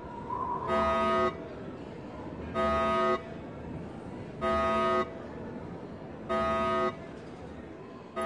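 A loud, buzzing horn-like alarm tone sounds four times, each blast about half a second long and roughly two seconds apart, over a faint steady hiss.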